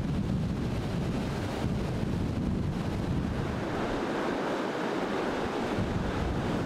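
Strong wind blowing across the microphone: a steady, buffeting rush of noise with no pitch to it, the low rumble easing for a moment a few seconds in.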